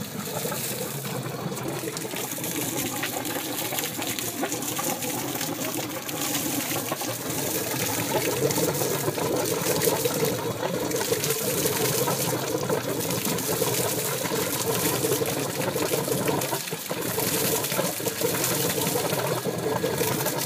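Inboard towboat engine idling while it warms up on the trailer, its wet exhaust burbling out of the twin transom outlets as cooling water gushes and splashes onto the pavement. The sound grows a little louder about eight seconds in.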